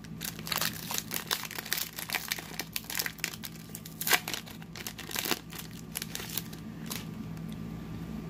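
Wrapper of a Topps Stadium Club baseball card pack crinkling and tearing as it is ripped open by hand and the cards are slid out. The crackles come quick and irregular and stop about seven seconds in, over a steady low hum.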